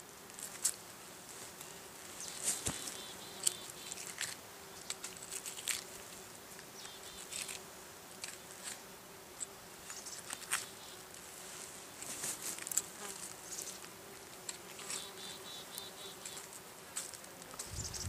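Bees buzzing around the elk carcass in a steady low drone, with scattered short clicks and rustles from the knife and hands working the meat.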